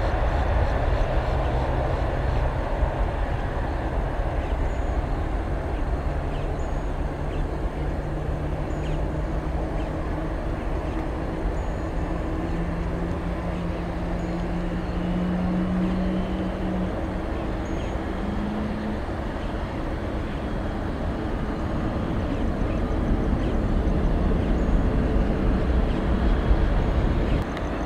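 Jet airliner engine noise: a steady low rumble, with a low hum that rises slowly in pitch over about fifteen seconds and then fades.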